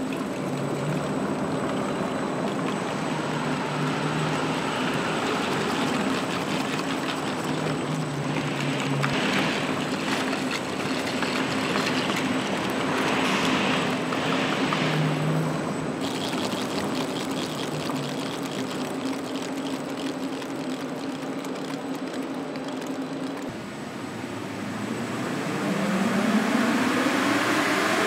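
Porsche Taycan turning its wheels on a roller test stand: a steady mechanical hum with a held low tone, then a whine rising in pitch near the end as the rollers and wheels speed up.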